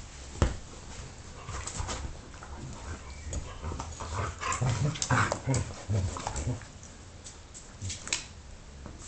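A beagle and a galgo play-fighting: scuffling, mouthing and short dog vocal noises, irregular and busiest midway, with one sharp knock about half a second in.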